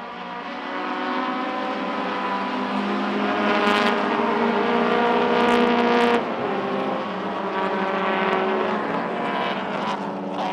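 Classic saloon racing cars' engines at full throttle passing at speed; the note rises as they approach, drops suddenly as they go by about six seconds in, and more engine sound follows before fading near the end.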